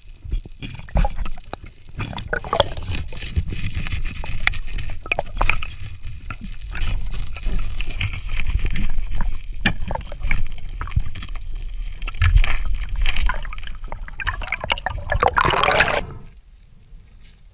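Underwater sound picked up by a camera in its housing: water rushing and gurgling with scattered clicks and knocks. Near the end comes a louder bubbling rush that stops suddenly.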